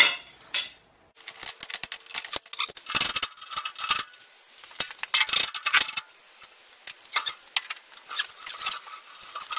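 Metal parts and hardware of a machinery mobile base being handled during assembly: a busy run of clinks, clicks and scrapes, metal knocking on metal.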